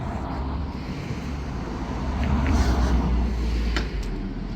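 Steady low rumble of a car on the road, with a faint tick near the end.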